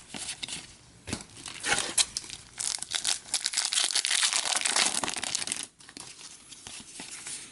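A hockey card pack's wrapper being torn open and crinkled in the hands. There are a few scattered crackles at first, then a dense run of crinkling from about three to nearly six seconds in, then quieter handling.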